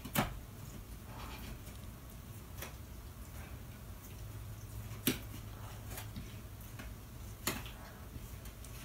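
A German shepherd gnawing a bone, teeth clicking and scraping on it in a few sharp clicks: one near the start, one about halfway and one near the end, with fainter ticks between, over a low steady hum.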